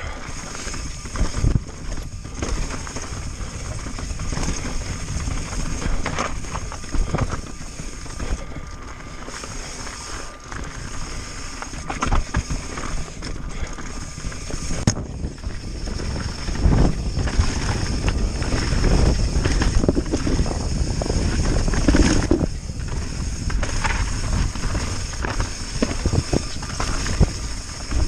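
Pivot Firebird 29 mountain bike descending rocky singletrack: tyres crunching over gravel and rock, with irregular knocks and rattles from the bike and wind on the microphone. It grows louder and rougher about halfway through.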